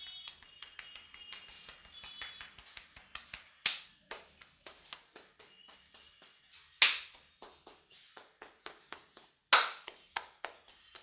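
Hands tapping and patting rapidly on a head in an Indian head massage, several light taps a second. Three much louder sharp slaps fall about three seconds apart.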